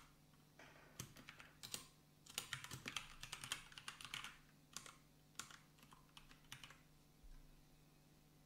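Faint typing on a computer keyboard: scattered keystrokes with a quick run of them from about two to four seconds in, thinning out and stopping about a second before the end.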